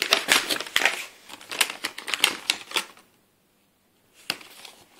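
Small hard plastic Trash Pack toys, mini trash cans and blister packaging clattering and crinkling as the pack's contents are dumped out: a quick run of clicks and rustles that stops short, then about a second of silence and one sharp click near the end.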